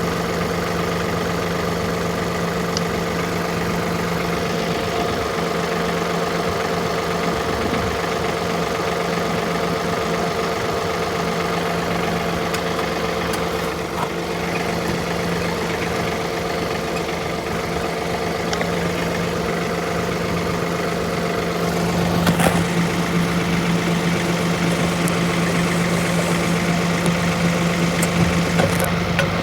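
Tractor engine running steadily at an even, low speed, getting a little louder about two-thirds of the way through.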